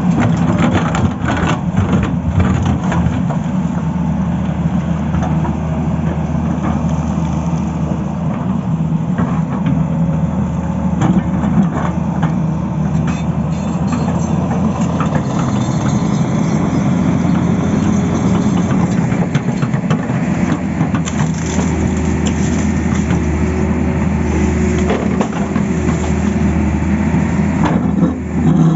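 Tata Hitachi excavator's diesel engine running steadily while it cuts into a road, with scattered knocks and crunches from the digging.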